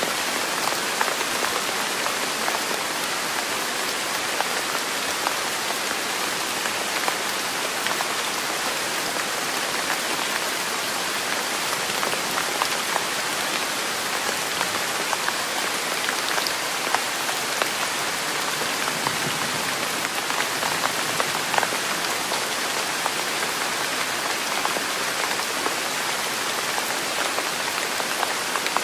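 Steady rain falling: an even, unbroken hiss dotted with many small drop ticks.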